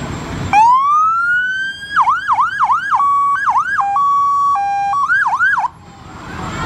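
Fire ladder truck's siren: a rising wail about half a second in, then quick yelp sweeps, a stretch switching between a high and a low tone, and more yelps before it cuts off suddenly. Low engine rumble of the passing truck comes in after it.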